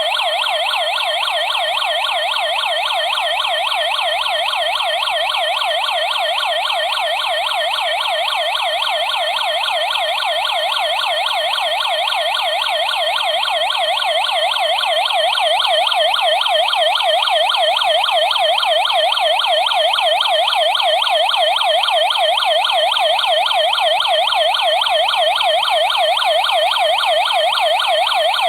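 Security alarm system's electronic siren sounding continuously, a fast, regular rising-and-falling wail that gets a little louder about halfway through. It is the alarm going off on an armed system as a detector is tested.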